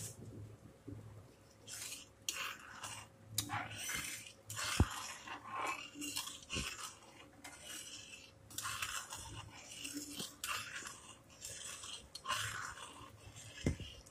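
A flat spatula stirring and scraping around a steel pan of sugar syrup: irregular scrapes with a few sharp knocks of the spatula against the pan.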